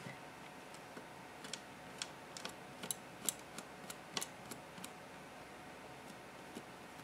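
Faint, irregular clicks and ticks, about a dozen and mostly in the middle few seconds, from a paintbrush dabbing paint onto a hand-held 3D-printed plastic model.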